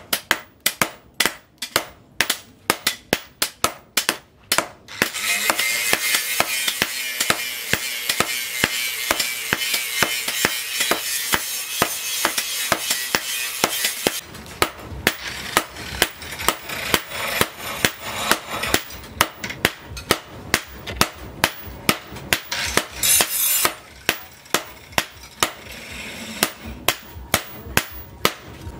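Hand hammers forging a red-hot steel knife blade on a steel post anvil: a steady run of sharp metal-on-metal blows, about three a second. From about five seconds in to about halfway a steady hiss lies under the blows.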